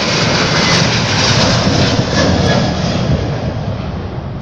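Boeing 737-900 jet airliner's CFM56 engines at takeoff power as it climbs out close by: loud, steady jet noise that swells in the first second and fades slowly toward the end.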